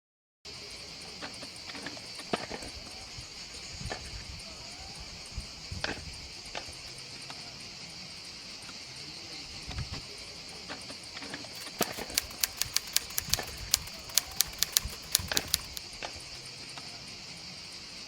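Steady chirring of insects, like a chorus of crickets, running throughout. A quick run of sharp clicks breaks in about two thirds of the way through, with a few soft thumps scattered earlier.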